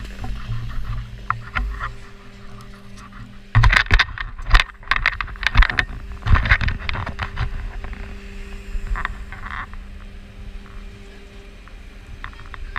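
A snowboard sliding over snow, heard through a pole-mounted action camera as a steady low rumble. Sharp knocks and scrapes come in a dense cluster from about three and a half to seven and a half seconds in; this is the loudest part, and a few more follow near nine seconds.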